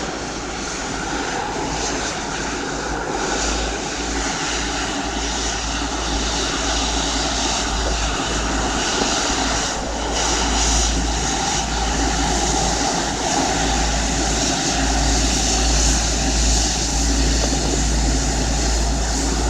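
Boeing 777-200ER's General Electric GE90 turbofan engines running steadily, a continuous whine over a deep rumble, growing slightly louder towards the end.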